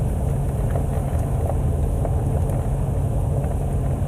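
Steady low rumble of a vehicle heard from inside its cabin, with a few faint light ticks of handling.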